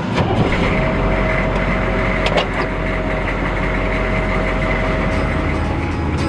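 A vehicle engine running steadily with a low rumble and a faint steady whine, with a sharp knock near the start and two more about two seconds in.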